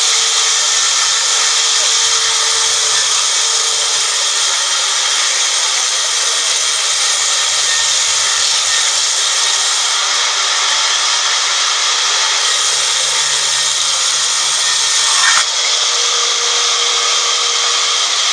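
Vertical band saw in a sawmill running steadily through a teak log, a continuous high-pitched hiss and whine of the blade in the wood. There is a short knock about fifteen seconds in.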